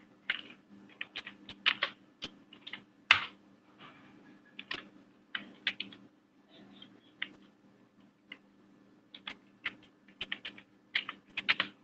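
Typing on a computer keyboard: irregular runs of key clicks with short pauses between them, over a faint steady hum.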